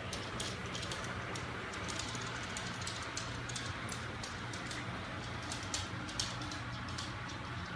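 ILIFE V10 robot vacuum running: a steady motor hum with many irregular light clicks and ticks over it.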